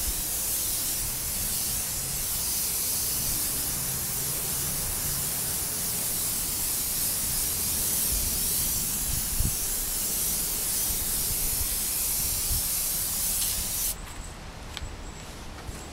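Airbrush spraying paint onto a motorcycle fuel tank: a steady hiss of air and paint that cuts off suddenly about 14 seconds in.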